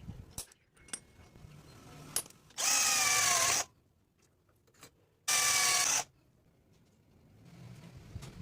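A power tool's electric motor whines in two short bursts, one of about a second and then a shorter one, with a few light clicks and knocks before them.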